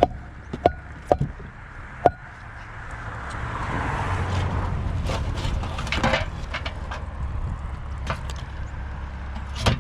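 Rummaging through bagged trash by hand: a few sharp knocks in the first two seconds, then a stretch of rustling and rattling with many short clicks as items are moved about, over a steady low rumble.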